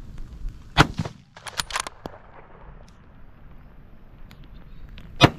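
Two loud rifle shots, about a second in and again near the end, some four seconds apart, with a cluster of lighter sharp knocks just after the first.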